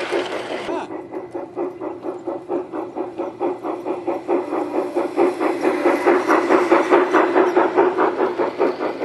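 G-scale model steam locomotive chuffing rhythmically, about four or five chuffs a second, over the steady hum of its running gear on the track. It grows louder as the locomotive comes close and passes.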